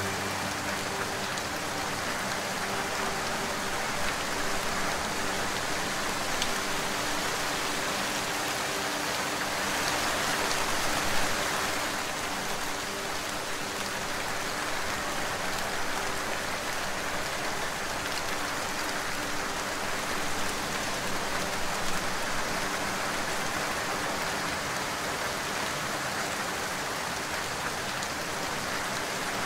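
Steady rain falling, an even hiss of many drops on surfaces with no let-up.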